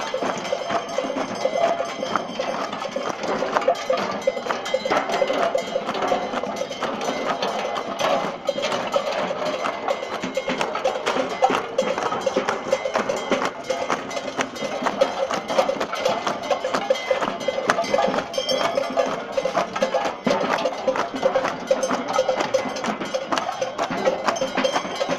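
Street masquerade band's rhythmic percussion: bell clanks and wooden knocks beaten in a steady, busy pattern that keeps going without a break.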